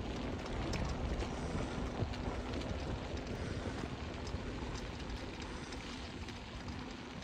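Wind buffeting the microphone: a steady low rumble with a hiss over it and scattered light clicks.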